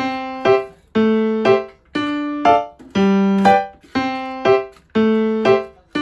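Background piano music: electric-piano notes struck in a steady pulse about twice a second, each ringing and fading before the next.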